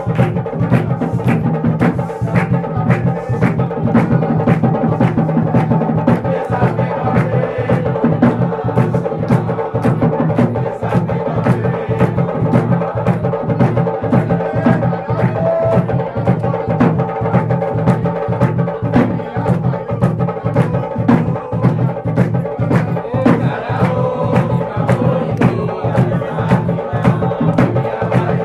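Orisha drumming music: drums and sharp percussive strikes keeping a steady, fast rhythm, with a chanted vocal line held over it.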